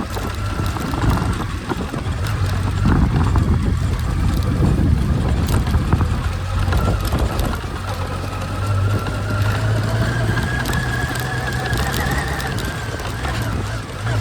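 Motorcycle engine running during a ride, with steady wind and road noise. In the second half the engine note climbs gradually for a few seconds, then drops back near the end.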